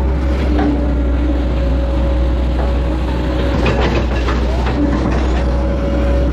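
Hitachi excavator's diesel engine running under load, heard from the operator's cab, with a constant whine over its low hum; a few knocks and scrapes about halfway through as the bucket digs in a muddy ditch.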